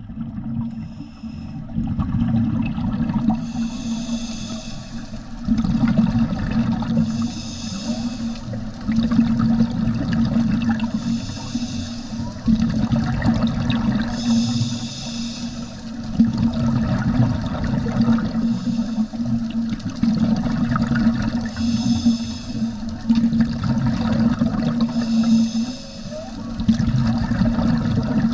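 Underwater sound of a scuba diver's regulator: bursts of exhaled bubbles come every three to four seconds over a steady low rumble of the water.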